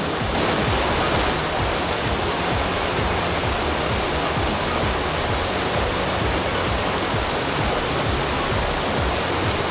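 Steady, loud rush of a waterfall on a mountain stream.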